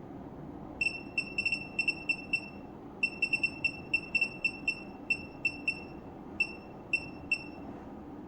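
Short electronic key beeps, about twenty in irregular runs, each the same single pitch, like buttons or a knob being worked on a bench instrument. They start about a second in and stop shortly before the end, over a faint steady hum.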